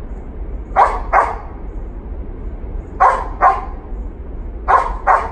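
Dog barking in pairs: three quick double barks, about two seconds apart.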